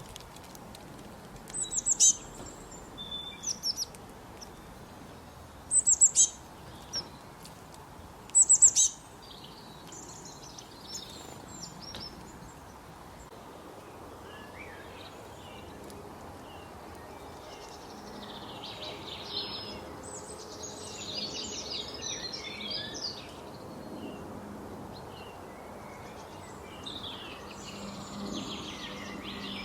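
Small songbirds chirping: a few loud, sharp, high chirps in the first nine seconds, then quieter, busier twittering from several birds later on.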